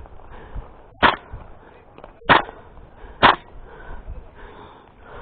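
Tokyo Marui MWS gas blowback airsoft rifle firing three single shots, each a sharp crack, about a second apart.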